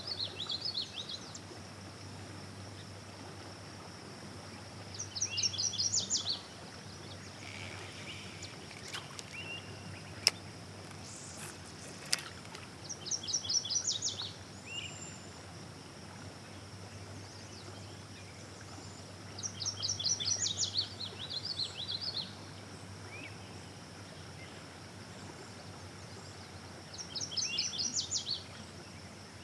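A songbird repeating a short phrase, a quick run of high notes lasting about a second, five times at intervals of roughly seven seconds, over a low steady hum. Two sharp clicks come a little after the middle, the first of them the loudest sound.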